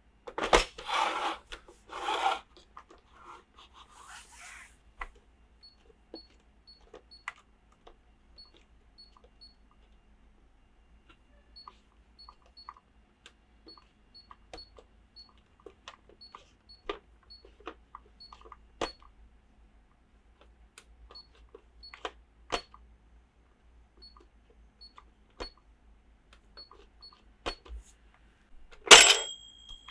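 Toy unboxing handling: crinkling plastic packaging for the first couple of seconds, then scattered light clicks and taps of small plastic toy pieces. A sharp clack comes near the end, followed by a brief ring.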